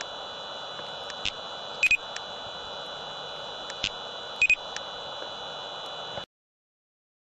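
Laser speed gun, an LTI Ultralyte 100 LR, giving a short double beep as each laser shot is fired, twice, about two and a half seconds apart, with a few faint single clicks between, over a steady high whine and hiss. The sound cuts off suddenly about six seconds in.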